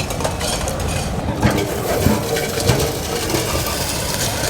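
Road roller crushing seized motorcycle silencers: a steady noisy din with three sharp metal crunches a little over half a second apart.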